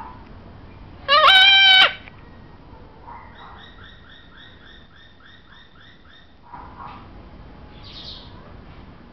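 Goffin's cockatoo (Tanimbar corella) giving one loud, pitched call lasting under a second, a little over a second in. A run of about a dozen soft, evenly repeated chirps follows, about three a second.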